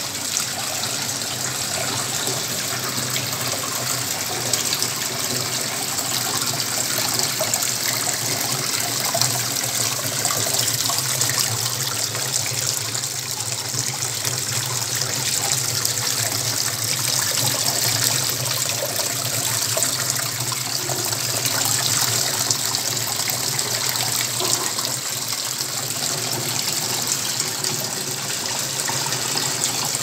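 Water from a small faux-rock pond fountain falling and splashing steadily into its fish pool, a continuous even rush of water.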